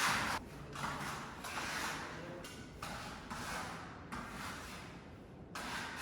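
Putty knife scraping filler across a surface in a series of short strokes, about one a second, as chipped spots are filled and scraped flat before painting.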